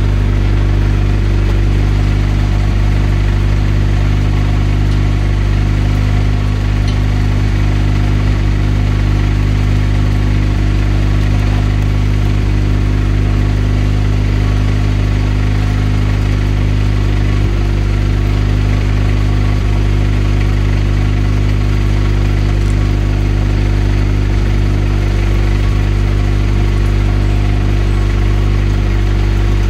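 Honda Civic's turbocharged four-cylinder engine idling steadily through a newly built 2.5-inch exhaust with a muffler.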